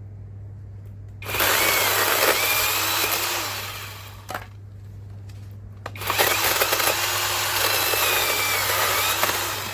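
YOVOT 12-inch cordless battery-powered electric chainsaw running in two bursts of about three seconds each while cutting small branches. Its motor whine sags and recovers in pitch during each burst.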